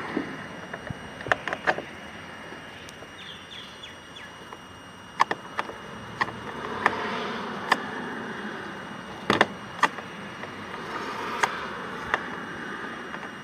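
Scattered sharp clicks and taps from a screwdriver and hands working screws out of a car's interior door trim panel, irregular and spread out, over a steady background hiss.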